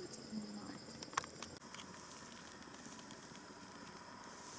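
Crickets and other night insects chirring steadily, with a couple of sharp clicks about a second in.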